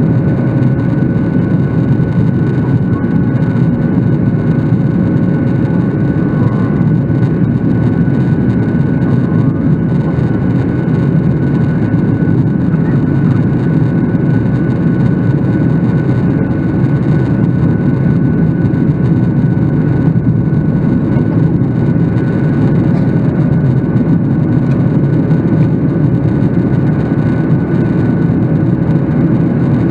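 Steady in-flight cabin noise of a Boeing 737 airliner heard from a seat over the wing: an even, low roar of the jet engines and airflow, with two faint steady tones.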